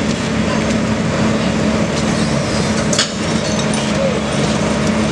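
Kobelco SK200 excavator's diesel engine running steadily with a constant low hum, with one sharp knock about three seconds in.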